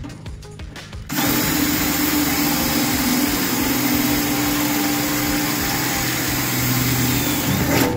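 Cordless drill boring through the sheet-steel wheelhouse panel to drill out spot welds. It starts about a second in, runs steadily at one speed and stops just before the end.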